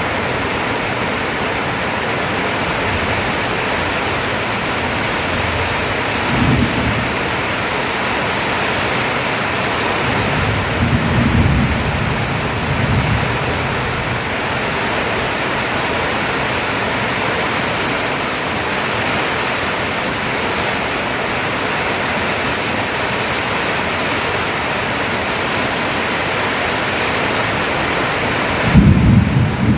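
Steady rushing noise with no distinct events, broken by a few short low rumbles, the loudest near the end.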